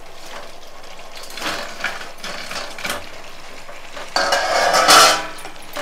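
Fried chicken pieces tipped into hot sauce in a steel pan and stirred with a wooden spatula: light clatter and scraping, then a louder burst of sizzling and scraping a little past halfway.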